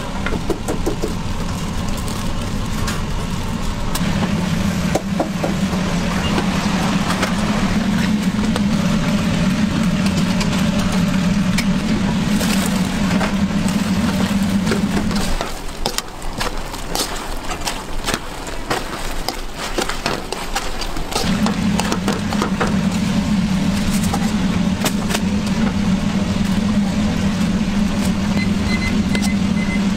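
Stir-frying in a wok: a steady low roar under sizzling, with frequent clinks and scrapes of a metal ladle against the pan. The low roar stops for about five seconds midway, then comes back.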